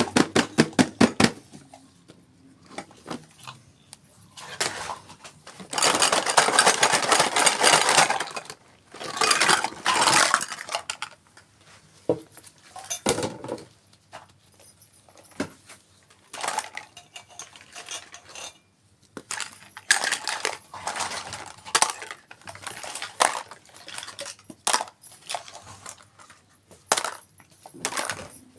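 Small toy kitchen pieces and their packaging being handled: a quick run of clicks at the start, two longer stretches of dense rustling about six and nine seconds in, and scattered taps and light clinks.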